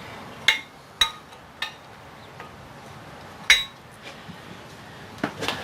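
Sharp metallic clinks of steel tools and bolts being handled while a puller is set up on a steel coupling hub: four single clinks spaced through the first few seconds, then a quick cluster of them near the end.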